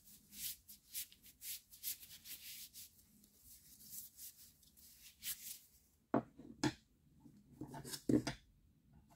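Gloved hands rubbing and handling an old wooden-handled screwdriver, a quick series of brushy rubbing strokes. Later come a few knocks and clatters as the screwdriver is moved and set down on the wooden tabletop, the loudest around eight seconds in.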